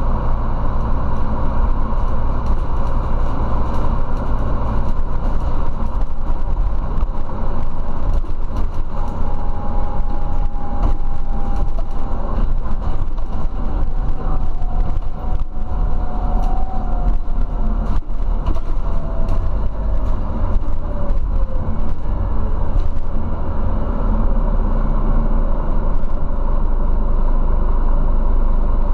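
Interior ride noise of a Scania CityWide Euro 6 city bus with a ZF automatic gearbox on the move: a steady low engine and road rumble with frequent small rattles and knocks from the body and fittings. A faint whine slowly falls in pitch through the middle stretch.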